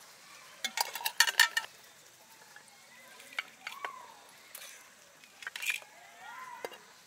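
Metal serving spoon scraping and clinking against an earthenware pot while scooping steamed broken rice onto plates. A quick cluster of clinks comes about a second in, then single clicks follow every second or so.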